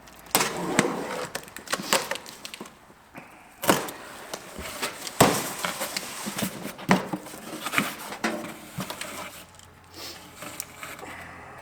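A cardboard box being opened and the parts of an insulated wall thimble taken out: rustling packaging with a string of sharp knocks and clicks as the pieces are handled.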